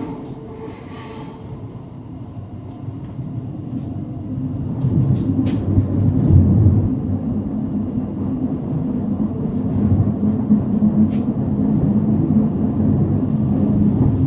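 Cabin noise of a Class 700 Desiro City electric train running through a tunnel, heard from inside the carriage: a steady low rumble of wheels on rail that grows louder about four seconds in. A high squeal dies away at the start, and a few faint clicks come through later.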